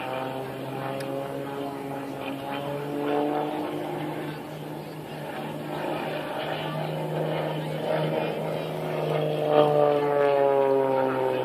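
Aerobatic stunt plane's piston engine and propeller droning in flight, its pitch sliding down about three seconds in and again near the end as it manoeuvres, loudest near the end.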